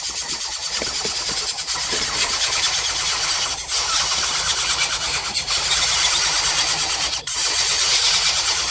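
Loud, steady, high-pitched buzzing of insects, with short dips about three and a half, five and a half and seven seconds in.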